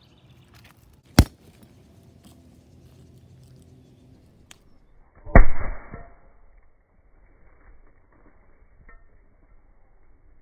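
A cork blasting out of a glass bottle with one loud pop about five seconds in, then a short rush of escaping gas and vinegar spray. The carbon dioxide from the baking soda and vinegar reaction has built up enough pressure to force the tight cork out. A single sharp click comes about a second in.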